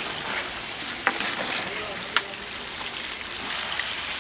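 Pork offal sizzling steadily on a large iron griddle, with two sharp clicks about one and two seconds in.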